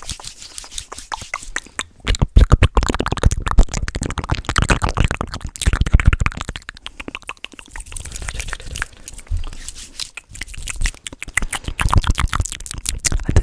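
Fast, aggressive ASMR mouth sounds close to the microphone: a rapid run of wet clicks, pops and smacks with low thumps.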